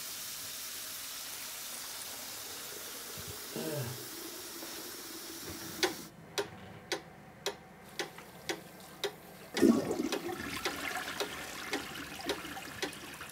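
A toilet flushing, water rushing steadily for about six seconds, then cut off by a clock ticking about twice a second, with one louder knock about ten seconds in.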